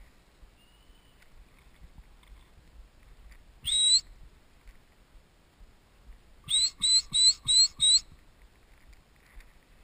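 Electronic beeper collar on an English setter: one rising, hawk-like note, then a quick run of five identical rising notes, about three a second. The rapid series is the collar's point signal, meaning the dog has stopped and is holding a bird.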